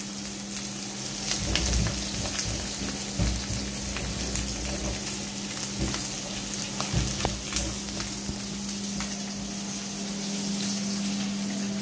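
Food sizzling in hot oil in a cooking pan, with scattered clicks and low knocks from stirring, over a steady low hum.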